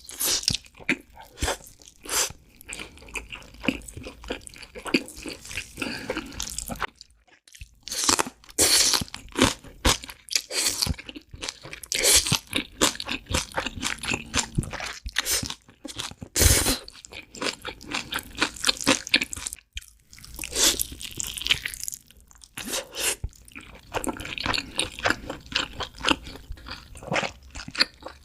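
Close-miked eating of crunchy food: dense, rapid crunching bites and chewing, with two brief breaks about seven and twenty seconds in.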